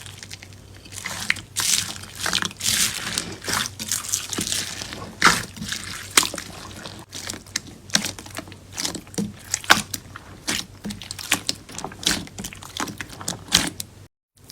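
Slime being squeezed and pressed by hand, giving irregular wet, sticky clicks and small crackles. It breaks off for a moment near the end.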